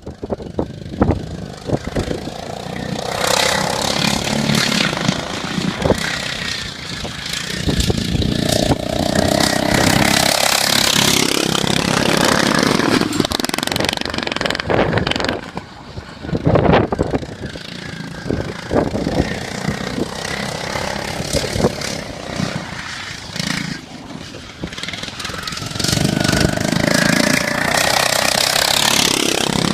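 Racing lawn mower engines running at high revs, swelling and fading several times, with a rising whine near the end as one revs up.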